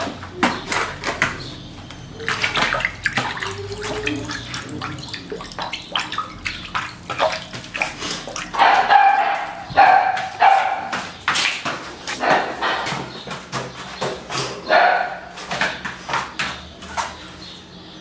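A dog whining, with a drawn-out cry about halfway through and a shorter one a few seconds later, among scattered clicks and knocks of the dog moving about its food bowl on a tiled floor.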